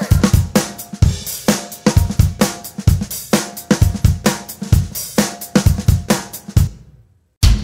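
Background music with a steady drum-kit beat of snare, hi-hat and bass drum. It fades out about six and a half seconds in, and after a brief silence another drum-led beat starts just before the end.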